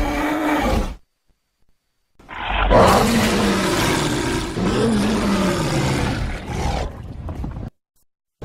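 Gorilla roar sound effects played back as separate clips: one ends about a second in, then after a gap of dead silence a long growling roar with a wavering pitch lasts about five seconds and cuts off.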